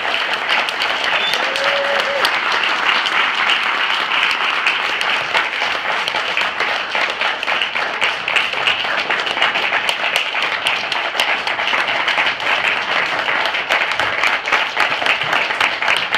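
Audience applauding: many hands clapping in a dense, steady patter that holds for the whole stretch.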